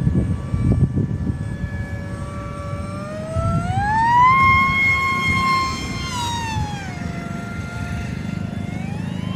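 Small 2900kv brushless motor spinning a 5x4 propeller, its whine rising and falling with the throttle: the pitch climbs about three and a half seconds in, holds, drops back around six to seven seconds, and starts climbing again near the end, over a steady low rumble.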